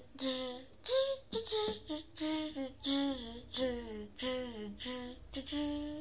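A voice humming a melody in short notes that slide up and down in pitch.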